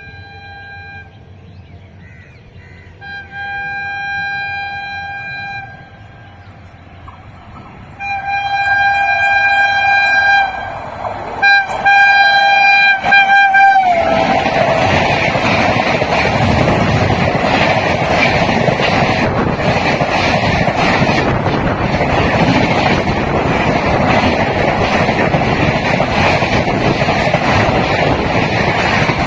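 Indian Railways WAP-7 electric locomotive sounding its horn: a steady note in long blasts about 3 and 8 seconds in, then several short toots, the pitch dropping slightly as it passes at about 14 seconds. After that comes the loud, steady running noise of the train going by.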